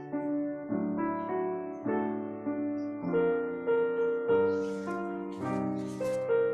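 Piano playing a slow piece, with notes and chords struck about once every half second to a second.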